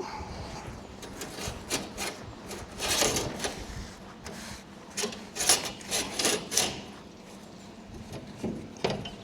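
Steel plate scraping and rubbing against the boat's steel deck in irregular strokes, as the patch is worked into position.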